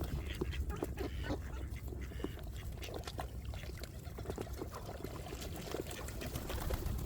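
A flock of ducks and geese calling, with quacks and honks, over a steady low rumble.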